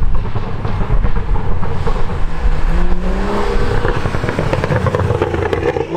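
BMW M2's turbocharged straight-six running loud through a decatted Fi exhaust as the car drives up and past, with a deep rumble and a dense crackle throughout. The engine note rises under throttle about two and a half seconds in.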